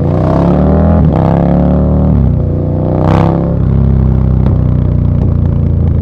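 KTM 1290 Super Duke R's V-twin engine through an Austin Racing V3 150 mm exhaust, accelerating away from a standstill: the engine note rises in pulls, breaking at upshifts about one and two seconds in, then runs steadier.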